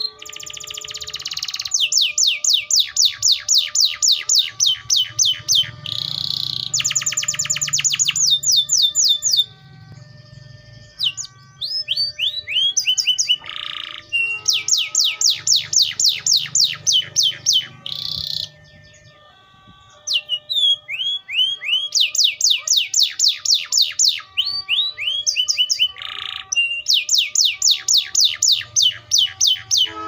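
Wild-type canary (Serinus canaria) singing: long runs of rapid, evenly repeated down-slurred high notes, strung into phrases several seconds long with a couple of short breaks between them.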